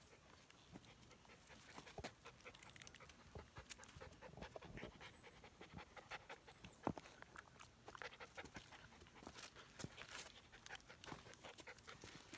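A standard poodle puppy panting faintly close to the microphone, with scattered light clicks and taps throughout.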